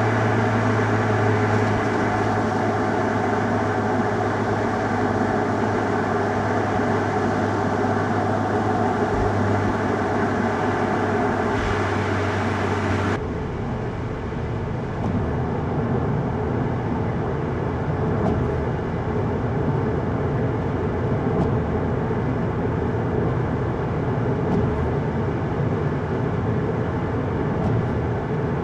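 Road noise inside a Volkswagen Golf GTI mk7.5 while driving: a steady low engine drone over tyre and road rumble. About halfway through, the sound changes abruptly. The steady engine tone drops out and a duller, rougher road rumble carries on.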